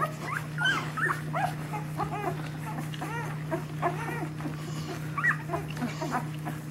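Two-week-old puppies squeaking and whimpering while nursing, with many short rising-and-falling squeals overlapping one another, over a steady low hum.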